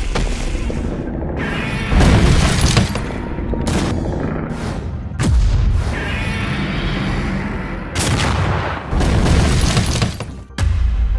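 Loud cartoon soundtrack: music mixed with heavy booms and crashes. The sound changes abruptly every couple of seconds, as if in quick cuts.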